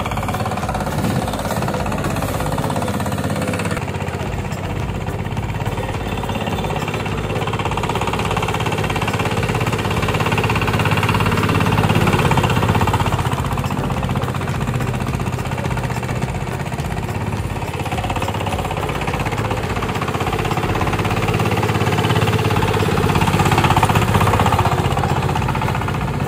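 22-horsepower Chinese diesel engine of a homemade boat-hulled paddy tractor running hard under load as it ploughs through deep mud, a steady rhythmic diesel knock. It grows louder about halfway through and again near the end.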